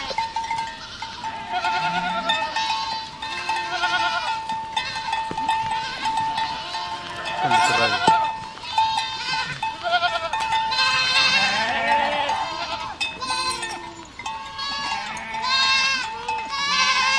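Several goats bleating over and over, their wavering calls overlapping one another, with a thin steady tone running underneath.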